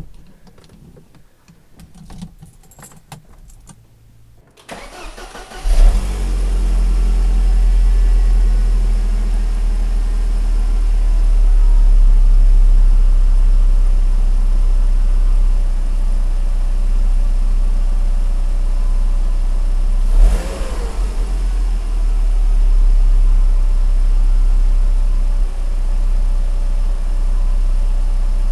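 The 1999 Mercedes-Benz SLK230's supercharged 2.3-litre four-cylinder engine cranks on its newly fitted Bosch starter about five seconds in, catches at once, and settles into a steady idle. A brief blip comes about twenty seconds in. The quick start is the sign that the starter replacement has worked.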